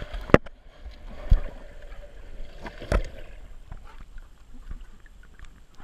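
Pool water sloshing and lapping around an action camera's waterproof housing, muffled by the housing as it goes below and above the surface. Three sharp knocks come in the first three seconds, with lighter clicks after.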